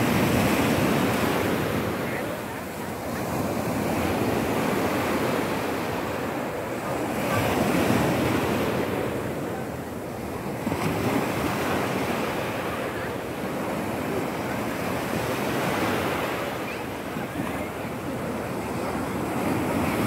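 Ocean waves breaking and washing up onto a shallow sandy shore, the rush of surf swelling and fading every four or five seconds.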